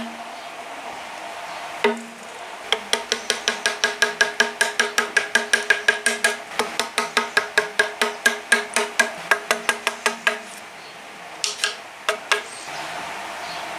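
Rapid, even light taps of a hammer on a Japanese chisel driving it into a wooden beam, about five a second with a short metallic ring on each. The run stops about ten seconds in, and a few single taps follow.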